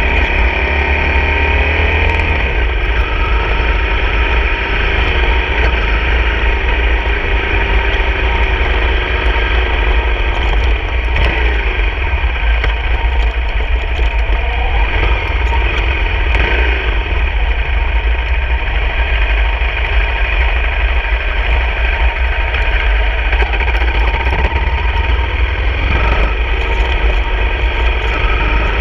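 Honda CRF250 dirt bike's single-cylinder four-stroke engine running under way, its pitch rising and falling several times as the rider opens and closes the throttle, over a steady low rumble.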